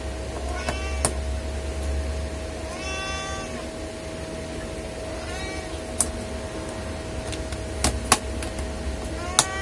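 A cat meowing four times, each call rising then falling in pitch, the second the loudest. In the second half come a few sharp clicks of screws and a screwdriver on the laptop's plastic case, over a steady hum.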